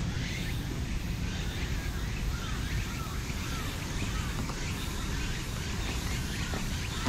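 Birds chirping, a run of short repeated calls in the middle of the stretch, over a steady low outdoor rumble.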